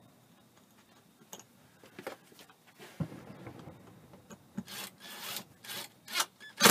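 A cordless drill drives a screw into wood in several short runs, with the grinding of the screw biting in and the loudest burst near the end. Before that there are light handling sounds of the hanger and fabric garment bag.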